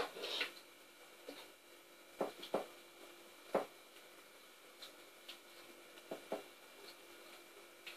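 A plastic serving spoon spreading chicken and tomato mixture over chips in a glass baking dish: a few faint, short knocks and scrapes of the spoon against the food and the dish.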